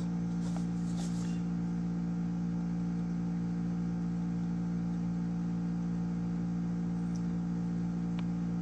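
Steady low electrical hum, with a few faint clicks as the charger's cardboard box is handled.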